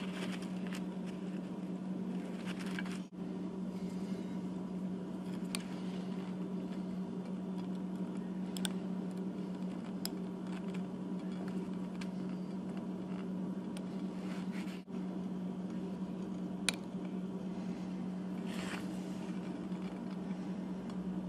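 Faint scratching and a few sharp little clicks of tiny gears being worked into a prosthetic finger's housing with a toothpick, over a steady low hum.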